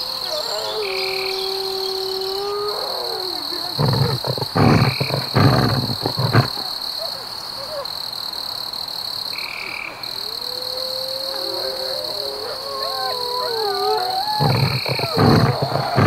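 Wolves howling in long, slowly gliding tones, with two spells of loud, rough calls about four seconds in and near the end, over a steady high insect drone.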